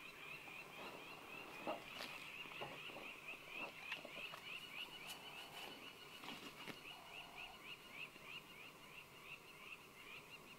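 Faint, steady series of short high chirps from a small animal, about three a second at one unchanging pitch, with scattered light clicks and rustles.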